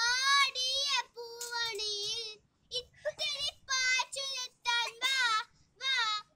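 A young girl singing solo and unaccompanied, in short phrases with a wavering, ornamented pitch and brief pauses between them.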